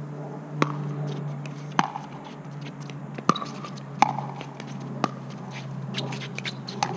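Pickleball rally: about six sharp pops of a plastic pickleball coming off paddles and the hard court, roughly a second apart, over a steady low hum.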